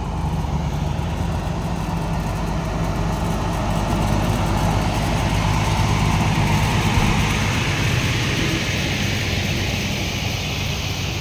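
Diesel engine of a truck-mounted crane driving past close by, growing louder as it nears and fading toward the end.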